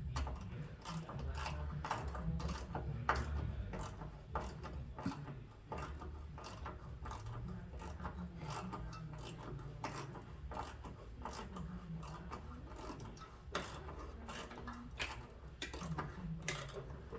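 Ratchet clicking in short, irregular runs as it turns a thread tap into the stripped steel backing plate for a car door hinge bolt.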